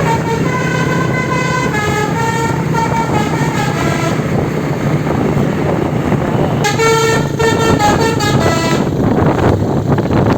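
Telolet horn on an Indonesian bus: a multi-note musical air horn playing a quick tune of changing notes for about four seconds, then sounding again for about two seconds near the seven-second mark, over steady vehicle noise.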